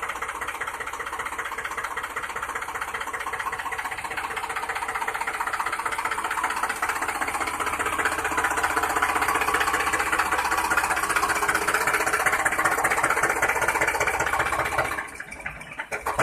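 A small motor running steadily with a rapid chattering beat, growing somewhat louder about halfway through and dropping away just before the end.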